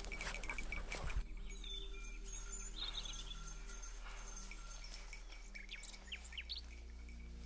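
Small birds chirping: a few short rising chirps about two-thirds of the way in, after a brief rustle at the start.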